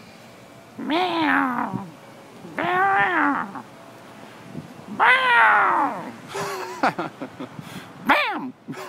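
Cat-like meowing: about five drawn-out meows, most about a second long, each rising and then falling in pitch.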